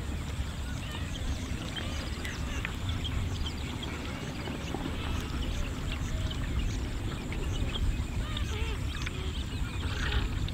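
Hot oil sizzling in a pot as a batch of vegetable fritters is lifted out on a wire-mesh strainer, with many short bird calls throughout.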